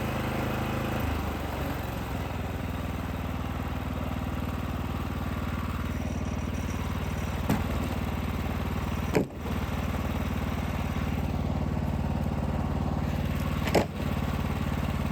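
Small engine of a Wood-Mizer LX55 portable sawmill running steadily, its note dropping slightly about a second in. A faint tap about halfway through and two sharper knocks later break in briefly.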